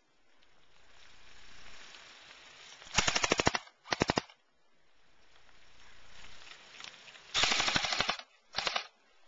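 Airsoft rifle firing in fully automatic bursts: a half-second burst about three seconds in and a short one just after, then a longer burst of nearly a second and a brief one near the end, each a fast even rattle of shots.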